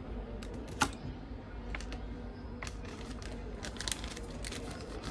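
Light clicks and taps of small camera parts, a shutter assembly and its metal frame, being handled and set down on a workbench mat: a sharper click about a second in and a cluster of light clicks near the end, over a steady low hum.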